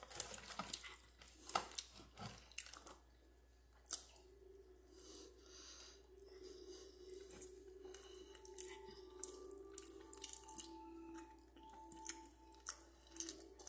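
Close-up wet mouth clicks and lip smacks, eating sounds, thickest in the first few seconds, then scattered. A faint steady hum sits underneath from about four seconds in.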